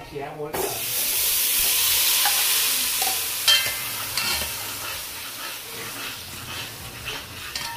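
Curry powder mixed with water hitting hot oil with browned garlic and pimento seeds in a pot: a loud sizzle that starts suddenly about half a second in and slowly dies down as it is stirred, with one sharp clack of the spoon on the pot partway through.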